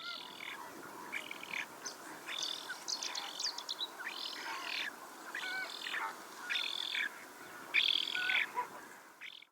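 A songbird singing: a string of about eight short, high phrases, roughly one a second.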